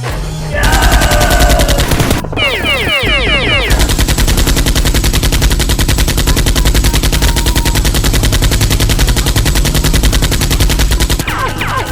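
Rapid automatic gunfire, a dense stream of shots many times a second, with a flurry of falling whistling tones about two seconds in and again near the end.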